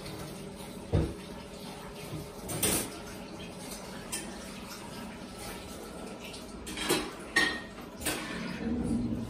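Scattered clinks and knocks of kitchenware and claws on a stone countertop as a husky puppy walks among the pots, about five in all, one near the end with a short metallic ring.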